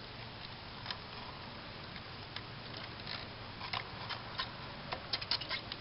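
Scattered light clicks and crackles, coming more often toward the end, over a faint steady low hum, as a home-made HHO (brown's gas) electrolyzer jar of baking-soda water running at about 10 amps is shaken.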